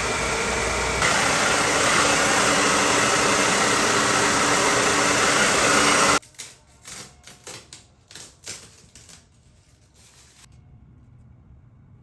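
Hair dryer with a diffuser attachment blowing steadily, drying a wet curly wig; it gets louder about a second in and is switched off suddenly about six seconds in, followed by a few soft knocks and rustles as it is handled.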